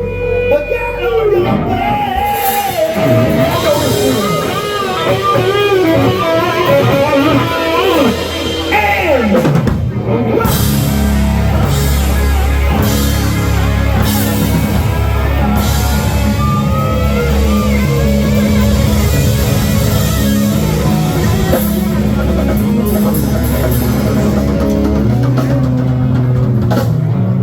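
Rock band playing. In roughly the first ten seconds an electric guitar makes long sliding glides, mostly falling in pitch. Then the full band comes in with drums, bass and guitar in a steady beat.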